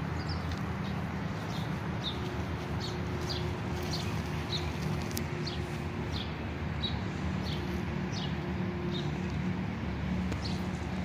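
A small bird chirping over and over, short high falling notes about once or twice a second, over a steady low hum from the street.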